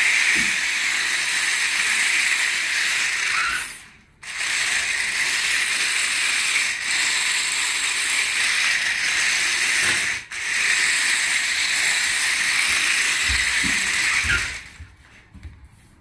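Toy RC stunt car's small electric motors and gears running with a steady high hiss as it spins and rolls by itself in auto-rotate mode on a hard floor. The hiss breaks off briefly about four seconds in and dips about ten seconds in, then stops a second or two before the end.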